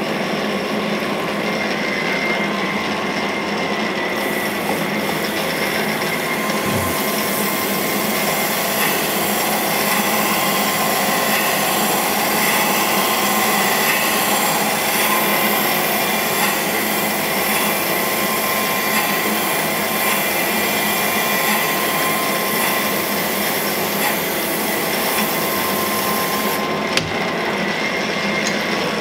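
Cam grinder's wheel grinding a lobe of an induction-hardened 8660 steel camshaft core under flowing coolant oil, a steady machine noise with a steady whine. The hiss of the wheel cutting the lobe grows harsher from about four seconds in and drops back near the end, where there is a sharp click. This is a light pass to take the last couple of thousandths off the lobe to size.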